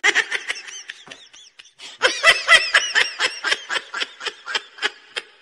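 A person laughing: a long run of short, breathy laughs that gets stronger about two seconds in, at roughly four laughs a second.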